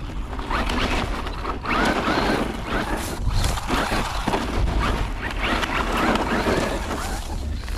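Hosim X08 brushless 4x4 RC truck running, its motor whining up and down in pitch a few times over a mechanical ticking from the drivetrain. The front differential is missing two teeth.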